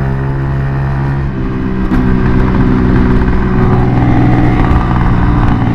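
Kuba Blueberry 50 cc scooter engine running under way through an aftermarket Akrapovic exhaust tube, with a baffle at the inlet and a silencer at the tip. It gives a steady, even note that picks up a little and gets louder about two seconds in.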